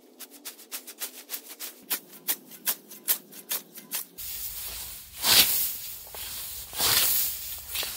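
A quick run of short, sharp strokes, about five a second, for about four seconds, then a scythe blade swishing through grass in long strokes about every one and a half seconds.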